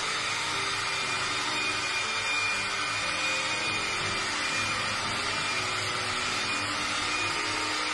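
Electric mixer running steadily at speed, beating butter and sugar together to cream them for a butter cake batter.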